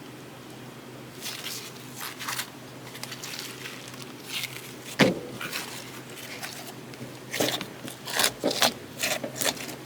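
Blue slime being squished and stretched by hand: irregular wet squishes and crackles, with one sharp snap about halfway through and a quicker run of squishes near the end.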